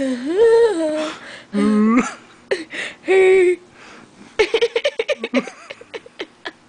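Hearty human laughter: a few long, wavering voiced laughs, then a quick run of short laugh pulses starting a little past four seconds in that trails off.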